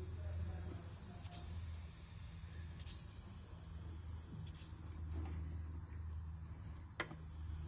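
Aluminium stovetop pressure cooker on a gas flame hissing softly and steadily as steam builds under its whistle weight, before it whistles, over a low steady hum. A few faint clicks.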